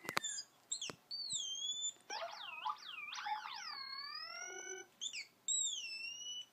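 WowWee MiP toy robot's speaker playing electronic chirps and swooping whistles. There are a few clicks and short chirps at first, then from about two seconds in a run of tones that dip and rise again, and it ends with two swooping whistles.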